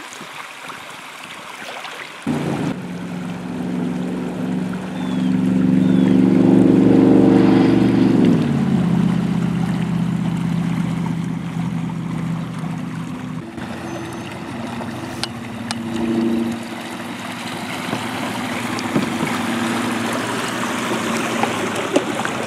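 Electric trolling motor of 55 lb thrust driving a small pontoon boat: a steady multi-pitched hum over churning water. The hum starts suddenly about two seconds in, drops in pitch around eight seconds in, then changes abruptly a few seconds later.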